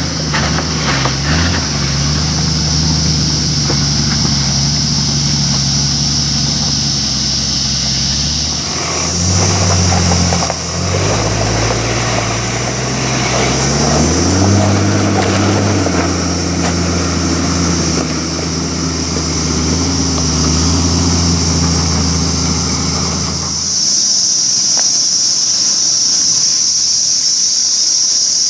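Toyota Land Cruiser 80 Series 4.2-litre turbo-diesel engine working hard as the truck crawls up a steep rock climb, its revs rising and falling with the throttle. Near the end the engine drops away, leaving a steady high hiss.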